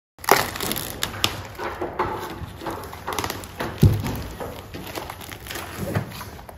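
Plastic protective film crinkling and rustling as it is pulled off a large glass panel, with two dull thumps, about four and six seconds in.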